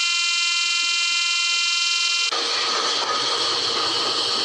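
The model diesel locomotive's electronic horn buzzer sounding one steady, high, buzzy tone that cuts off suddenly a little over two seconds in. A steady noisy whirr with a low hum follows, the model running on its track.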